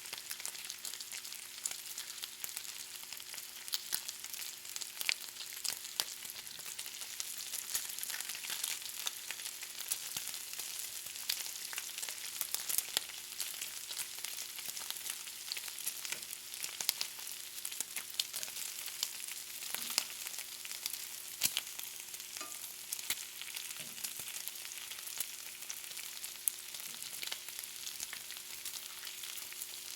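Bacon frying, a steady sizzle broken by frequent sharp pops and crackles of spitting fat, over a faint steady low hum.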